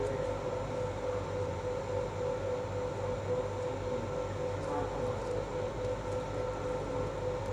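Steady mechanical hum holding one constant mid-pitched tone, with faint handling noises over it.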